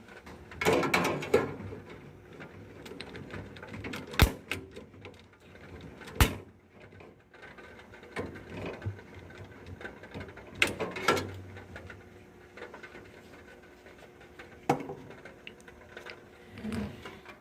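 Scattered clicks and handling noises from lighting the pilot of a gas furnace by hand, with two sharp clicks about four and six seconds in.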